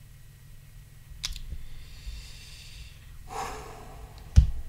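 A man breathing hard through his nose, holding back a laugh: a soft hiss, then a stifled snort about three seconds in. A sharp thump near the end is the loudest sound.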